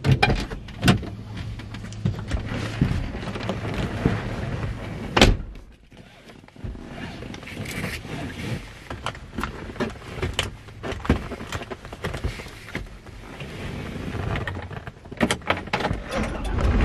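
Someone settling into a car's driver seat: a loud door-shutting thunk about five seconds in, then clothing rustle and a seatbelt being pulled across and buckled, with scattered clicks and knocks around the cabin.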